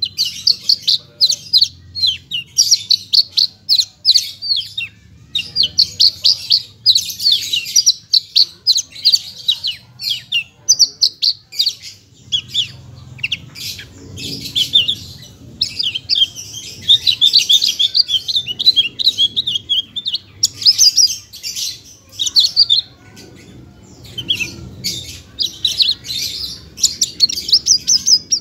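Javan bush lark (branjangan, parva type) singing a long, fast, varied song of rapid chirps and trills with only brief pauses. Its song is packed with imitated phrases of other birds.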